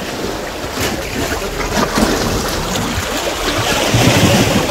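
Wind buffeting the microphone over sea waves washing against rocks, a little louder near the end.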